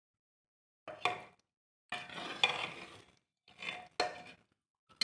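Metal ladle stirring potato curry in a pressure cooker, scraping and clinking against the pot in four short bursts.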